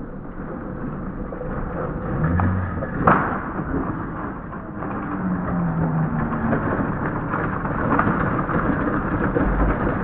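Plastic shopping trolley rolling down an asphalt road, its wheels rumbling and growing louder, with one sharp crack about three seconds in as the rider comes off and falls.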